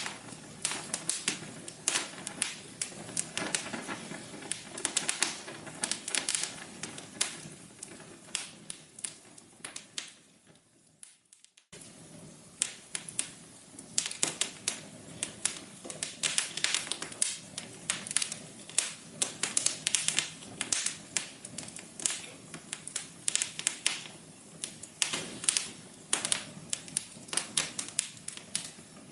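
Wood fire crackling, with dense irregular pops and snaps. It dies away almost to quiet about ten seconds in, then starts up again abruptly about a second and a half later.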